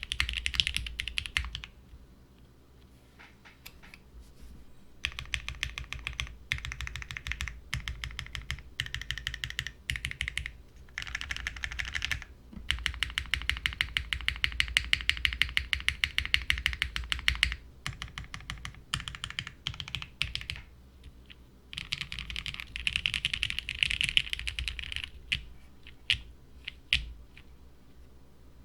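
Typing on a plateless, gasket-mounted Vertex Studio Arc60 WKL mechanical keyboard with unlubed Cherry MX Black linear switches and GMK keycaps: fast runs of keystrokes broken by short pauses, thinning to a few single key presses near the end.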